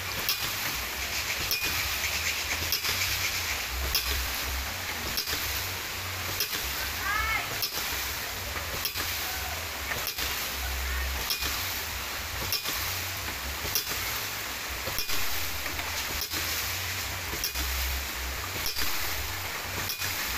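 Hydraulic ram pump running: its waste valve slams shut in a steady rhythm of sharp knocks, about one and a half a second, over the splash of water spilling from the valve. A bird chirps briefly twice.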